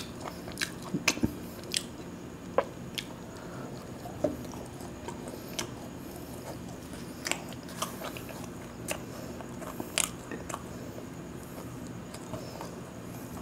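Close-up chewing and biting of a fried fish-roe fritter, with scattered sharp mouth clicks and smacks at uneven intervals.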